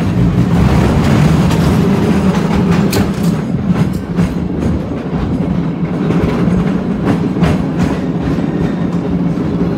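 San Francisco cable car running along its track: a steady low hum with scattered clicks and clacks.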